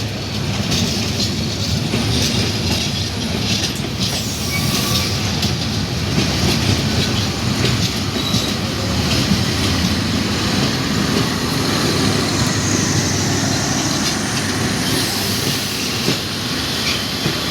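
Passenger train rolling past: a steady rumble, with wheels clattering over rail joints.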